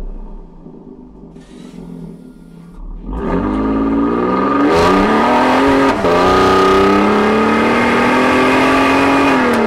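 2022+ Toyota Tundra's twin-turbo V6 through a Corsa 3.0-inch cat-back exhaust with twin 4-inch tips, running quietly for about three seconds, then accelerating hard with the exhaust note climbing in pitch. There is a brief dip about six seconds in, then it pulls steadily again before easing off at the end.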